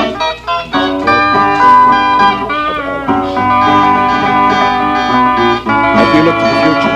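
Guitar music: plucked guitar notes ringing steadily, with a few notes bending in pitch about three seconds in.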